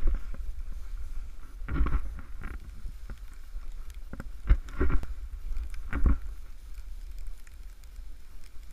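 Snowboard carving through deep powder, the snow swishing loudly several times with the turns, over a steady low rumble of wind on the microphone.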